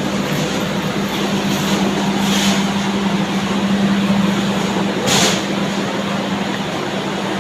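Passenger train running, heard from inside the carriage: a steady rumble and noise with a constant low hum, and one short, sharp noise about five seconds in.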